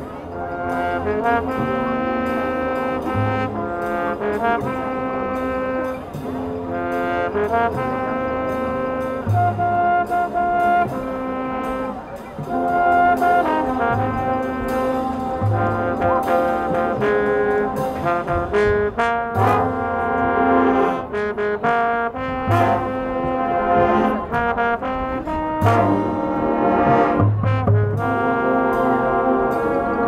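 High school marching band playing, with the brass section of trombones and trumpets sounding held chords and melody over drumline strikes and low drum hits.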